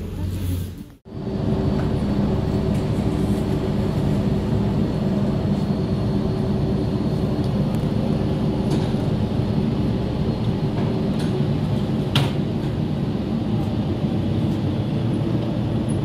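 Car ferry's engines running with a steady low drone and a hum of several low tones, starting abruptly about a second in.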